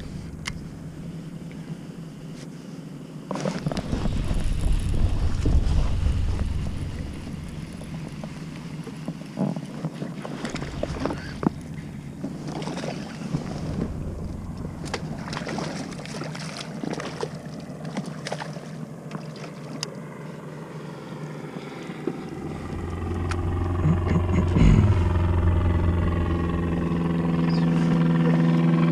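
Scattered knocks, clicks and rubbing of fishing gear being handled in a kayak as a fish is netted, over low wind rumble on the microphone. From about three-quarters of the way in, a steady engine hum builds and grows louder.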